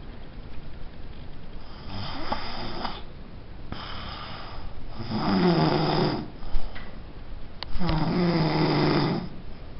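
Heavy snoring from a sleeper, one loud pitched snore about every three seconds, the first weaker than the two after it. A brief click comes just before the last snore.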